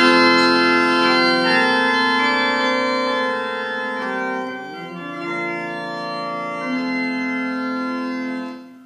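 Organ playing a hymn introduction: held chords that change every couple of seconds, starting abruptly and dying away near the end.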